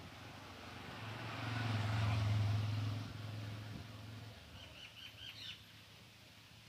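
A low engine hum swells for about three seconds and fades, then a bird gives a quick run of about six short chirps.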